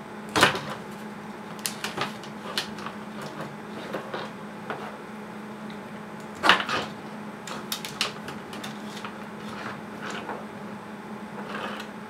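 Handling of a wire-and-plastic-plug power adapter: scattered small clicks and rustles of wires and connectors, with two louder knocks about half a second in and about six and a half seconds in, over a steady low hum.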